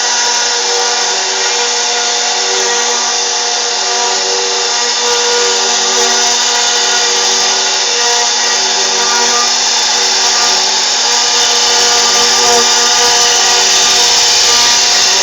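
CNC router spindle running steadily while carving, a continuous high whine over dense cutting noise that grows a little louder partway through.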